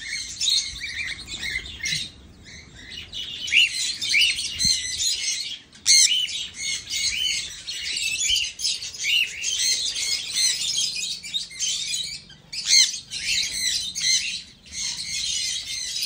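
A flock of small aviary parrots, cockatiels among them, chirping and chattering in many overlapping short, high calls.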